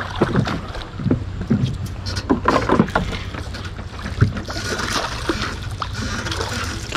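A small boat's motor running with a steady low hum, under irregular knocks and clicks and some rushing water or wind noise.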